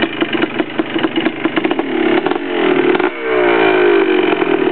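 2003 Yamaha Blaster ATV's single-cylinder two-stroke engine, dyno-ported and fitted with a full aftermarket exhaust, idling with a fast, even beat and then revved up, dipping briefly about three seconds in before revving again and falling back toward idle.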